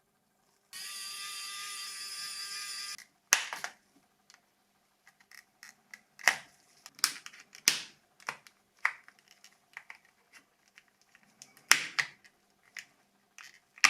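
A steady whirring hiss for about two seconds near the start, then a string of sharp clicks and snaps from tools and plastic parts as a Nokia 2760 flip phone's housing is taken apart.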